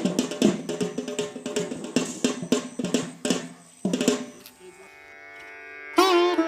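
Background music: a fast hand-drum rhythm that gives way about four seconds in to held steady tones, with a new string melody with bending notes entering near the end.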